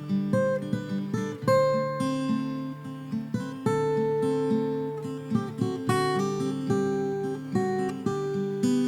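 Background music of acoustic guitar, a steady run of plucked notes, each ringing and fading before the next.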